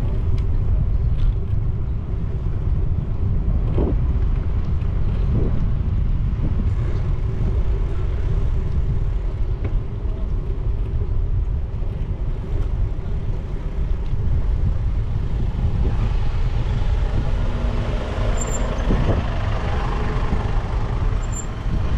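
City street traffic heard from a moving motorcycle: a steady low rumble of engine and road noise with other vehicles passing. A short steady tone sounds near the end.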